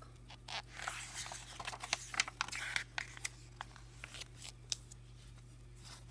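Pages of a paperback graphic novel being handled and turned: a run of paper rustles, flicks and crinkles, busiest from about one to three seconds in, then a few single flicks. A steady low hum lies underneath.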